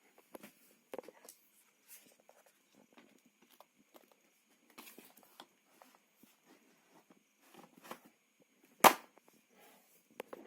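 Scattered light clicks and rustles, with one sharp, much louder click or knock about nine seconds in; no saw motor is running.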